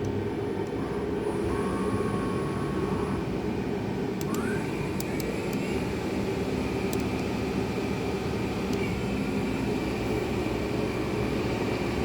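Okuma L250II-e CNC lathe running a program in auto mode: a steady machine hum and whir, with a brief rising whine about four seconds in and a few sharp ticks soon after.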